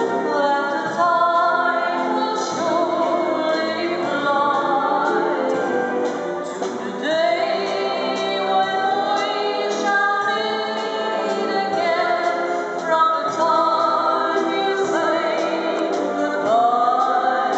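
A choir singing, the voices held with vibrato and sliding up into a new phrase twice.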